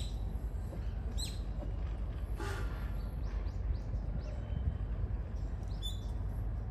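Small birds chirping: short, falling high notes scattered through, a few in a quick run near the middle, over a steady low background rumble.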